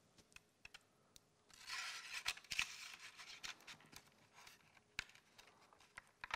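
Faint rustling and crackling of plant leaves and stems as a wired sedum sprig is pushed in among anthuriums and cinnamon-bark tubes, with scattered small clicks. The rustling is densest from about a second and a half in for nearly two seconds.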